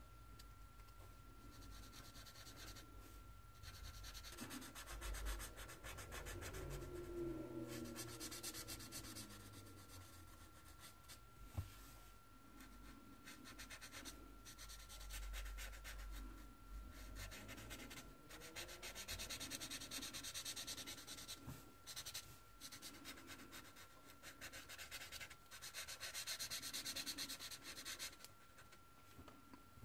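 Felt-tip marker nib rubbing on tan sketchbook paper in stretches of back-and-forth colouring strokes, with short pauses between. The sound is faint, with a thin steady whine underneath.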